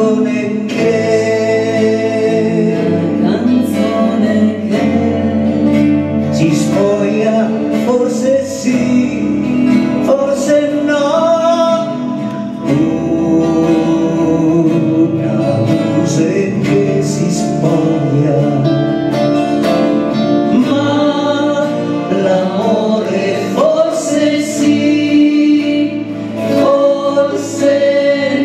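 Live song: a woman singing with men's voices over two guitars, one of them a classical guitar.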